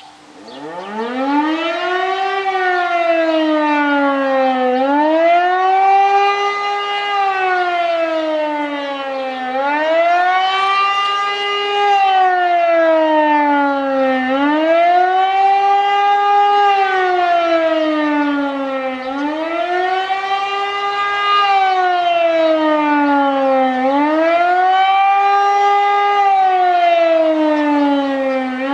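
E57 electromechanical civil-defence siren spinning up from a low pitch and then wailing, its pitch rising and falling about every five seconds: the up-and-down public warning signal of a siren test.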